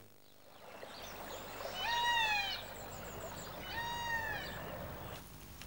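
A bird gives two drawn-out calls, each sliding slightly down in pitch, about two seconds apart, over a faint outdoor hiss.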